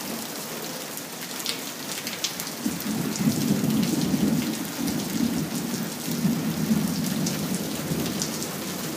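Heavy monsoon rain hissing steadily, with scattered sharp ticks of drops striking close by. A long roll of thunder rumbles in about three seconds in and fades near the end.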